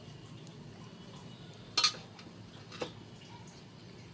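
Kitchen clatter: two sharp knocks about a second apart, the first much the louder, as the kachori balls are set into the cups of the oiled appe pan, over a faint steady low hum.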